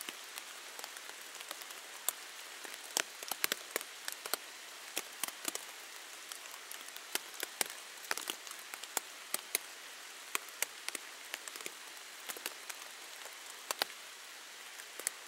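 Rain falling on a cuben fiber (Dyneema composite) tent canopy, heard from inside the tent: a steady hiss with many irregular, sharp drop hits.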